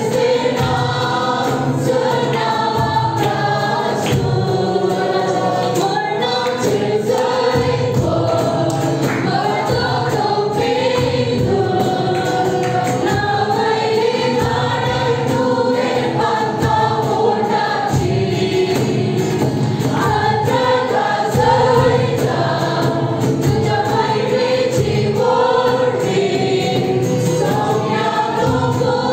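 Church worship team singing a Christian worship song together, with a sustained musical backing.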